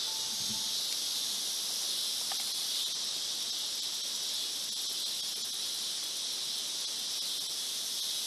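Steady, high-pitched chorus of field insects, an even unbroken drone.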